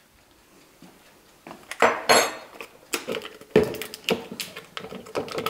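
Kitchen utensils and containers handled on a worktop: a bright clink about two seconds in, then a string of light knocks and clatter as goat cheese is put into a measuring jug.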